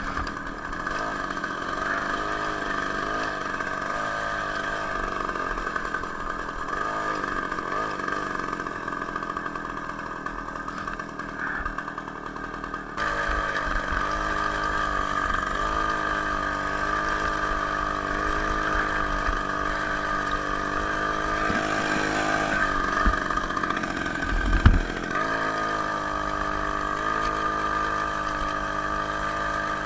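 Two-stroke engine from a Ural chainsaw, driving a homemade moped, running steadily with small shifts in pitch. About halfway through the sound jumps louder, and there is a brief thump near the end.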